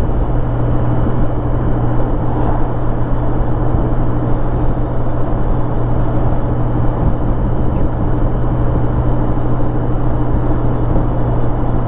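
Touring motorcycle cruising at steady highway speed: a constant low engine drone under wind and road noise, with no change in pitch or level.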